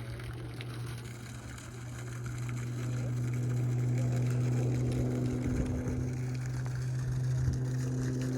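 Steady low machine hum with a fainter higher tone above it, growing somewhat louder after about two seconds.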